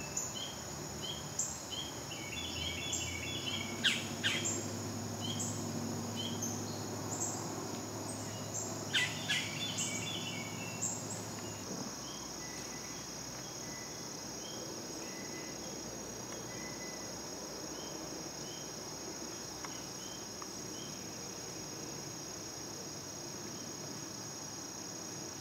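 Summer woodland ambience: a steady high-pitched drone of insects, with short repeated bird chirps and a couple of louder chattering bird calls. The bird calls stop about halfway through, leaving only the insect drone.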